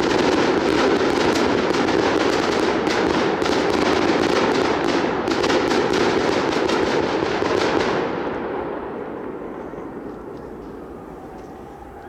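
Fireworks display going off in a dense, rapid crackle of small bangs. About eight seconds in, the crackling stops and the sound dies away.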